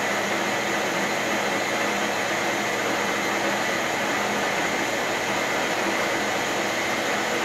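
ProtoTrak TRM CNC bed mill's spindle head running steadily at speed, an even mechanical hum with a faint whine.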